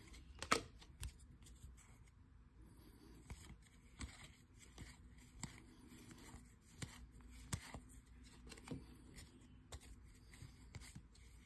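Baseball trading cards being flipped one at a time through a hand-held stack: faint, irregular clicks and slides of card stock, a few seconds apart.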